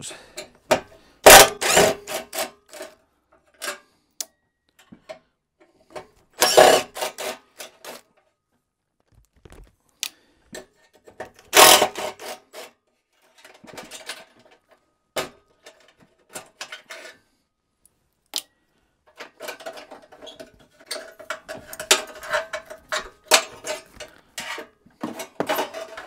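Cordless drill/driver running in short bursts to back out the screws holding the spark electrode in an RV furnace burner. Between the bursts there are clicks and rattles of small screws and metal parts being handled, and the busiest stretch of rattling comes near the end.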